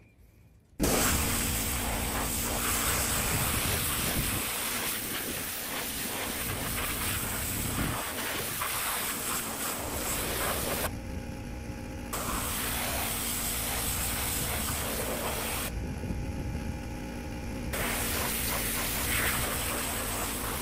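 Pressure washer spraying water onto painted sheet-metal tractor panels, a steady hiss of spray over its running motor. The spray cuts out twice, briefly, while the motor keeps running.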